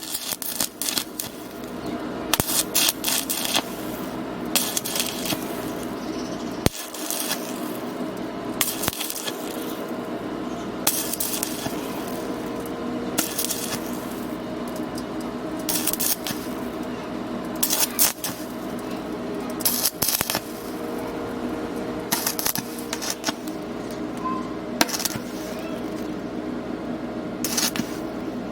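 Electric arc welding on thin tube: a continuous crackling, hissing arc over a steady hum, struck right at the start. It flares louder about every two seconds.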